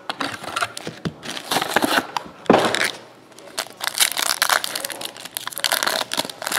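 Foil wrapper of a trading card pack crinkling and tearing as it is opened by hand, in irregular rustles, with one sharp loud snap about two and a half seconds in.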